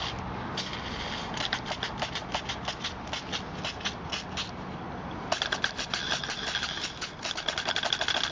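Single-cylinder live-steam engine of a 1-inch scale Case traction engine model being started: a few uneven puffs and clicks as it is turned over, then from about five seconds in it picks up into a rapid, even exhaust beat. Steam hisses from the open cylinder drains under the beat.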